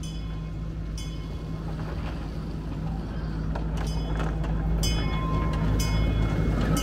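Miniature park-ride replica steam locomotive and its cars running on a small-gauge track toward the listener. A steady low rumble grows louder as it nears, with sharp clicks about once a second.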